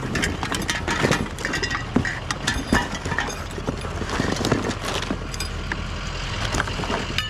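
Irregular clinks, clatter and rattles of scrap items being picked through and handled, over an engine idling steadily underneath.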